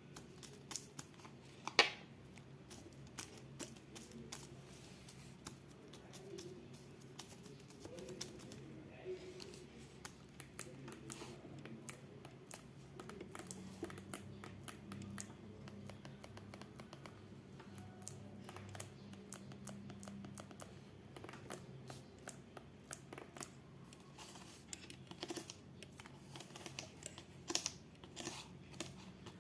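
Fidget board being played with: many small, irregular clicks and taps from its parts, with a louder click about two seconds in and another near the end.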